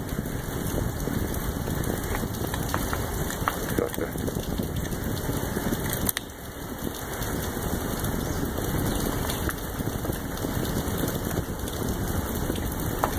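Steady rain falling, a continuous hiss with scattered tapping drops and one sharper click about six seconds in.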